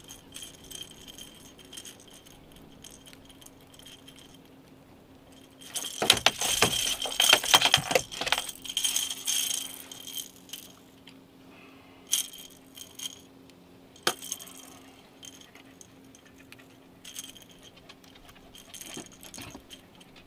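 Light metallic rattling and jingling as a caught fish and its hooked tackle are handled aboard a small boat. About six seconds in comes a loud, dense clatter lasting about four seconds, then a few sharp knocks.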